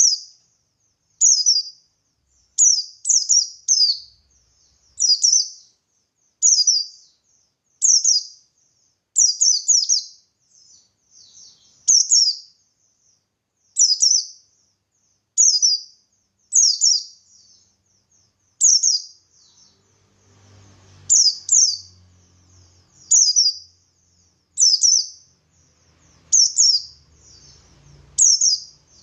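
White-eye (pleci buxtoni) singing in wild style: short, high chirps repeated about once a second, some in quick pairs or triplets.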